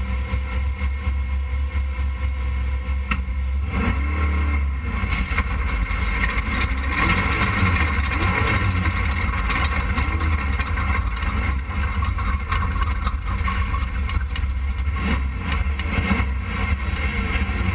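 Off-road race car under way on a dirt road, heard from its onboard camera: engine pitch rising and falling several times over a heavy low rumble of wind and road noise.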